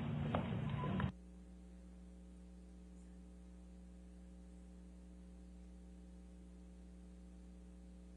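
Police body-camera audio of footsteps and clothing rustle, which cuts off abruptly about a second in, leaving a steady electrical mains hum.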